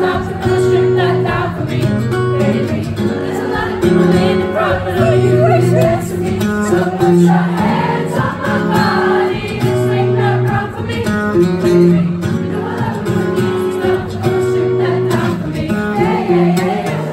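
Live acoustic pop performance: a man singing into a microphone over a strummed acoustic guitar, played through a PA system.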